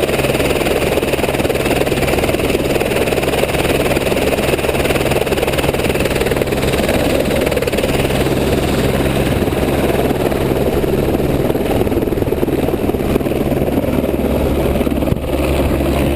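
Helicopter in flight: a steady, loud drone of engine and rotor over a continuous rushing noise, with a brief dip in loudness near the end.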